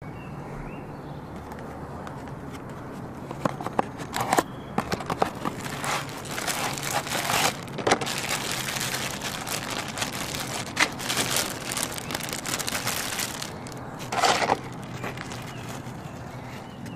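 Clear plastic packet of firecrackers crinkling and rustling as it is handled, in irregular bursts with a few sharper crackles, starting about three seconds in and dying away near the end.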